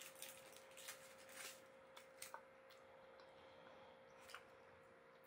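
Near silence with a few faint crinkles and clicks, mostly in the first couple of seconds: a foil-wrapped milk chocolate bar being bitten and its wrapper handled, with a faint steady hum underneath.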